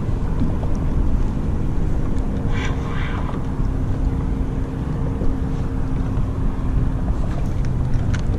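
Steady rumble of wind on the camera microphone and water chop around a kayak, with a faint steady low hum throughout and a brief splashy flurry about a third of the way in.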